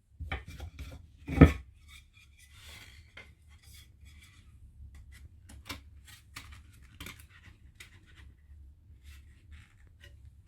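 Pieces of a cedar wood hive super being handled and set down: one heavy knock about a second and a half in, then scattered light clicks, taps and a short scrape.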